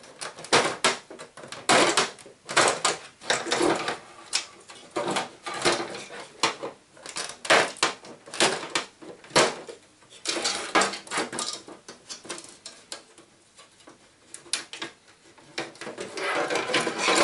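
Hand tools clicking, knocking and scraping against the hard plastic of an inkjet printer's scanner unit as it is pried apart: irregular sharp clicks, several a second in places, with short pauses between.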